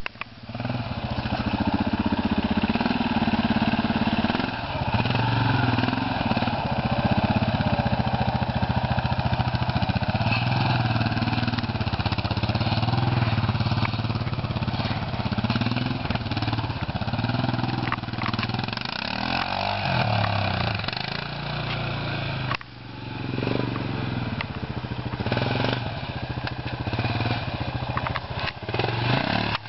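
Quad bike (ATV) engine running under load as it is ridden over bumpy ground, its pitch rising and falling again and again with the throttle. The engine note drops off sharply about three-quarters of the way through, then picks up again.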